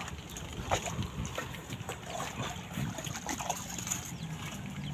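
Hoes scraping and chopping into wet mud in irregular strokes, over a steady low rumble.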